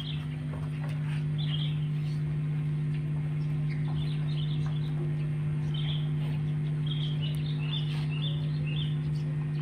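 A steady low hum with a few overtones, with small birds chirping in short scattered bursts, most of them in the second half.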